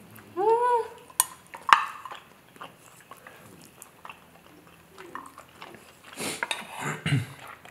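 Mouth sounds of eating instant noodles close to the microphone: a short "mm" hum, chewing, and a loud slurp about six seconds in. Wooden chopsticks click twice against the serving dish early on.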